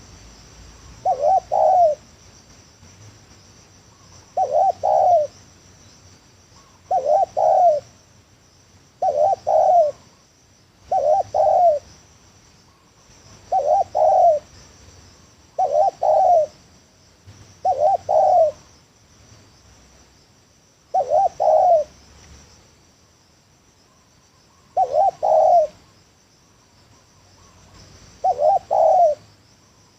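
Spotted dove (tekukur) cooing: a short, broken coo of a few notes, repeated about every two to three seconds, eleven times in all, over a faint steady high insect buzz.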